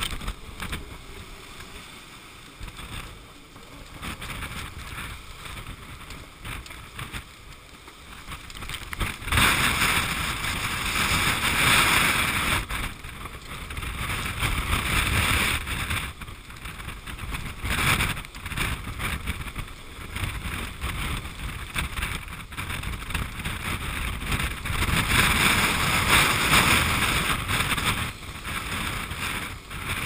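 Storm wind buffeting the microphone, with rough sea rushing and breaking along a sailing yacht's hull. It swells into two long, louder surges, about a third of the way in and again near the end.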